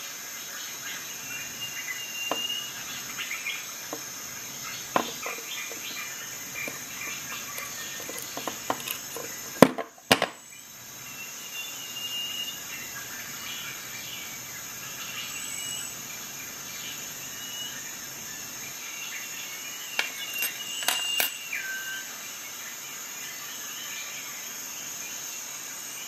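Scattered sharp clicks of a metal multitool and its small parts being handled, with a loud knock about ten seconds in and another cluster of clicks around twenty seconds. Under them runs a steady high-pitched trill of insects, crickets.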